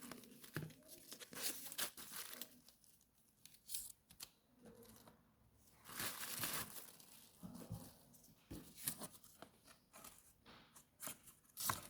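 Faint crinkling and tearing of packaging in irregular short bursts, as wrapping is opened by hand.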